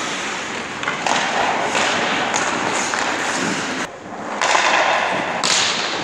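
Hockey goalie's skates scraping and carving on the ice, with a few thuds of puck and stick against the boards. About four seconds in there is a brief lull, then a long scrape ending in a sharp spray of ice, like a hard skate stop.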